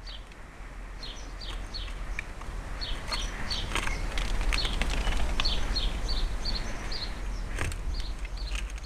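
Small garden birds chirping: a quick run of short, high, downward-sliding calls, several a second, busiest in the middle, over a steady low rumble.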